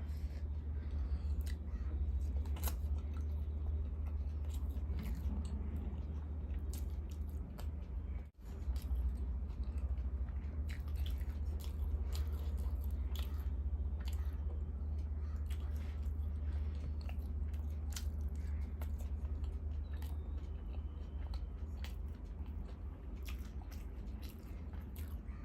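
Close-miked chewing and eating: irregular wet mouth clicks and bites over a steady low hum, with the sound cutting out for a moment about eight seconds in.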